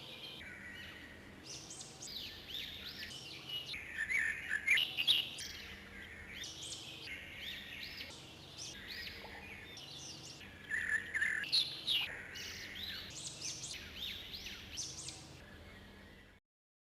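Small birds chirping, a dense run of quick, overlapping high calls that sweep up and down in pitch, which cuts off suddenly near the end.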